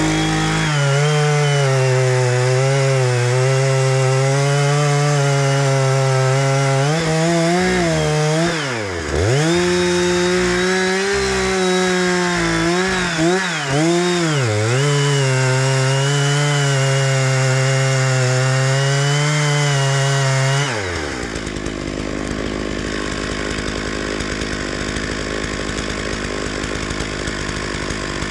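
Two-stroke chainsaw held at high revs, cutting wood, its pitch dipping several times before picking back up. About three-quarters of the way through the high whine drops off, leaving a lower steady running noise.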